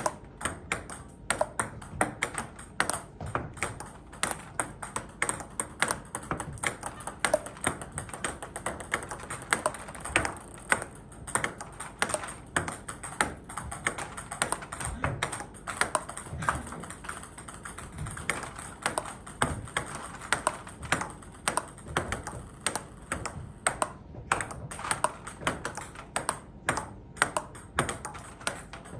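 Table tennis ball in a backhand rally: a steady run of sharp clicks as the plastic ball is struck by the paddles and bounces on the table.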